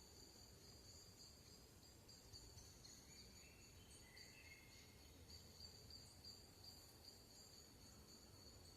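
Faint, steady high-pitched trilling of insects in a forest, with a few brief faint bird notes about three to four seconds in.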